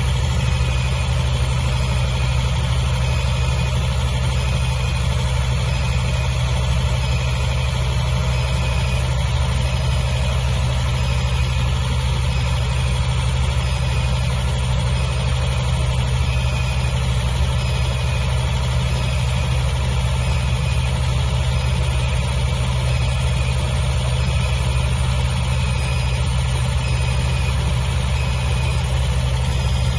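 A 275 kVA diesel generator set running at a steady speed: a loud, even engine drone that does not change.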